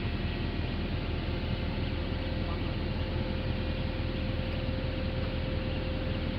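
A hydraulic pile-pressing machine running steadily, with a constant engine drone and a faint steady whine starting about a second in.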